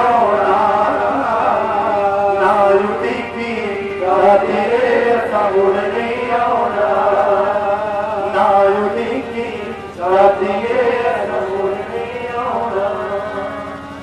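A man singing a Punjabi Sikh devotional song in long sung phrases through a PA system, accompanied by a harmonium's sustained reedy chords.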